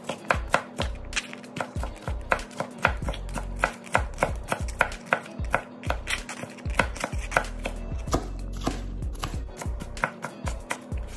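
Knife dicing green bell pepper on a plastic cutting board: quick, uneven chopping strikes, about three or four a second, easing off briefly about eight seconds in.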